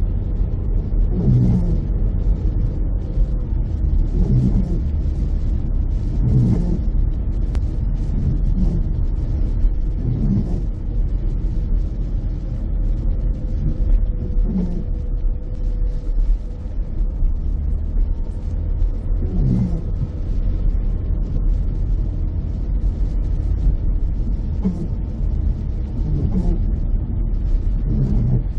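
Inside a car cabin on wet roads: a steady low road and engine rumble, with short recurring windscreen-wiper strokes every few seconds.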